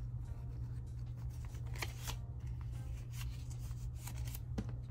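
Paper banknotes being handled and counted, with a few short crisp rustles and snaps, over a steady low hum.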